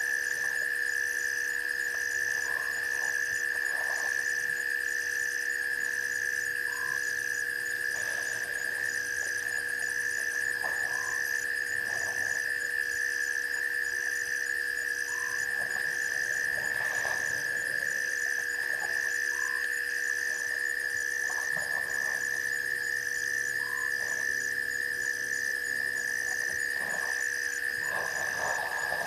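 Night chorus of frogs and insects at a waterhole: a steady high-pitched drone with a regularly pulsing chirp about once a second above it, and scattered short frog calls.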